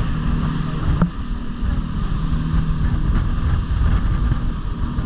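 A motorboat running at speed, its engine a steady low drone under the rush of water along the hull, with wind buffeting the microphone. There is a short thump about a second in.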